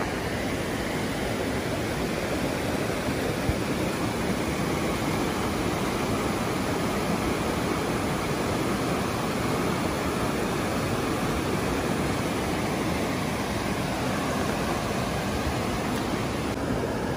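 Steady rushing of river water tumbling through rapids and over rocks, an even wash of noise that does not change.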